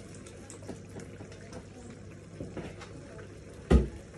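Vinegar poured from a plastic jug into a hot, steaming pan of beef. A sharp knock comes about three and a half seconds in.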